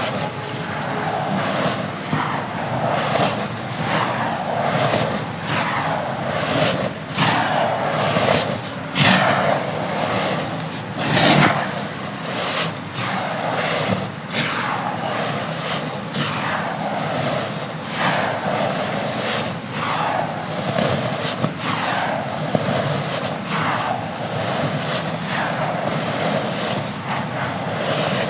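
Dry red dirt chunks being crumbled, with a run of crisp crunches about every second or so. There is one sharper, louder crack about eleven seconds in.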